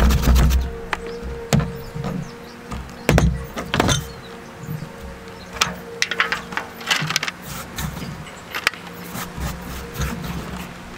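A carrot scraped down a metal box grater on a cutting board for the first second or so, followed by irregular scrapes, taps and knocks as gloved hands push the shredded carrot around the board.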